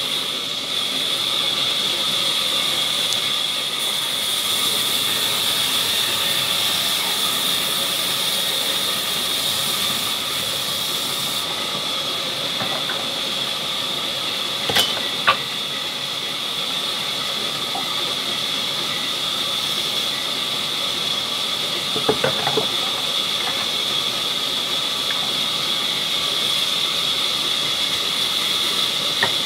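Sawmill band saw running and cutting through a log, a steady high-pitched whine over a hiss. A couple of sharp knocks come about halfway through, and a short clatter follows later.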